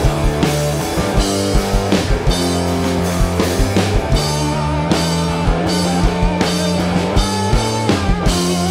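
Rock band playing live: guitar, bass and drum kit, with steady low bass notes under repeated kick-drum hits and cymbal strokes.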